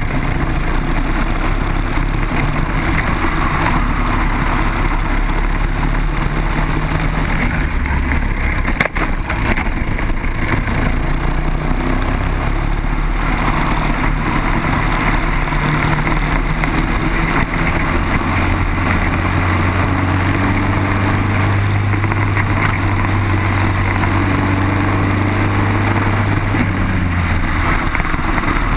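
Onboard sound of a Briggs & Stratton single-cylinder four-stroke kart engine running at racing speed. Its pitch rises and falls with the throttle through the corners, under a steady rush of wind noise on the microphone.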